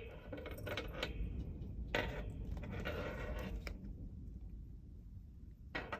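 Handling noise as a paper planner is set up for a close-up: a few sharp clicks or taps, one at the start, one about two seconds in and one near the end, with light rustling between them.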